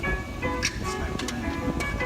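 Hip hop music playing: a held synth melody over a beat with regular hi-hat ticks, with no vocal line in this stretch.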